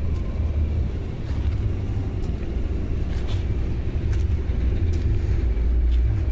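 Traxxas TRX-4 Defender RC crawler driving over rough ground: a faint steady electric-motor whine and scattered small clicks, under a heavy steady low rumble.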